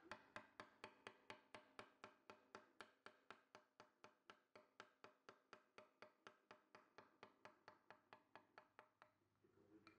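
Faint, evenly paced clicking, about four to five sharp ticks a second with a slight ringing tone, stopping about nine seconds in.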